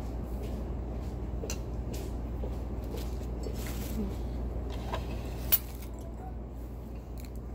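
Small clicks and clinks of utensils against dishes while eating, over a steady low hum, with one sharp click about five and a half seconds in.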